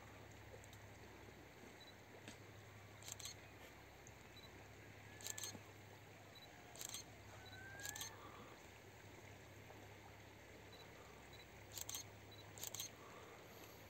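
Near silence with a low steady hum, broken by about seven short, sharp clicks spread through.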